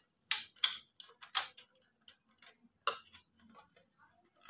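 Sharp, irregular clicks and knocks of hard plastic as hands work inside the opened plastic motor base of a juicer, pulling its switch parts and wiring out. The clicks come in a handful, mostly in the first three seconds.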